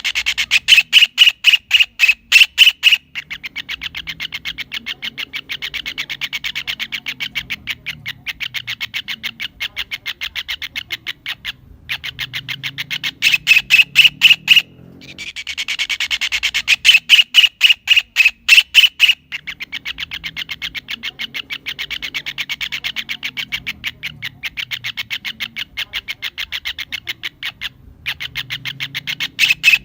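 Kingfisher calling: a rapid series of sharp, evenly spaced notes. Loud runs of about three seconds alternate with longer, softer runs of the same notes, repeating with brief pauses.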